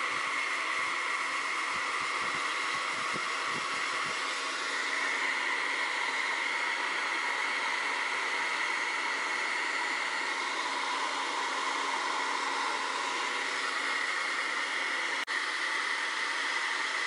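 Remington Air Wave hand-held hair dryer running on its highest heat and speed setting with its wind tunnel attachment, a steady rush of air with a constant whine. A few soft low thumps come in the first four seconds, and a single sharp click about 15 seconds in.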